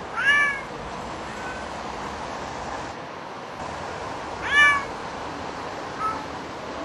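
Domestic cat meowing behind a window pane: two loud calls that rise then fall in pitch, about four seconds apart, with two fainter short meows between them. These are the cries of a cat left shut alone in a flat for days.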